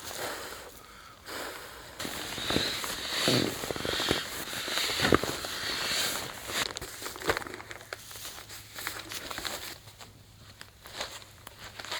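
Rustling and crinkling of a sleeping bag and mattress being handled, loudest for a few seconds in the first half, with several sharp crackles.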